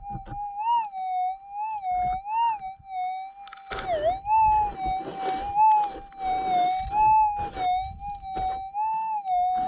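Minelab gold detector's continuous threshold tone, a steady hum that wavers upward briefly every second or two and dips once about four seconds in as the coil is swept over mineralised ground. Crunching and scraping of steps and the coil on stony ground, heavier in the second half.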